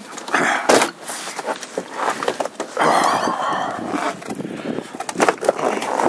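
Strong blizzard wind gusting over the microphone, with a sharp knock a little under a second in as a door is opened to the outside.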